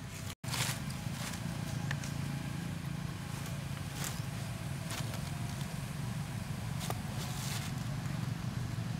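Steady low mechanical rumble, such as a motor running nearby, with a few short scattered clicks and rustles over it. The sound cuts out for an instant just after the start.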